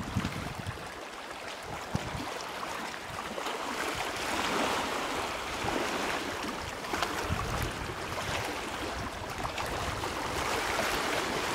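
Wind-driven waves on a choppy lake splashing and lapping, with gusts of wind buffeting the microphone as low rumbles near the start, about two seconds in, and again about seven to eight seconds in.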